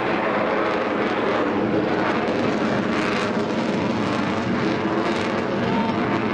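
Avro Vulcan bomber's four Rolls-Royce Olympus turbojets as it banks overhead: a loud, steady jet roar that neither rises nor falls.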